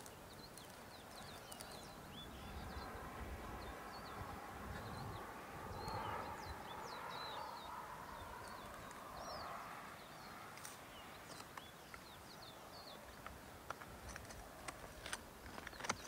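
Small birds chirping, with many short high chirps and whistles scattered throughout, over a faint rushing noise that swells and fades in the middle.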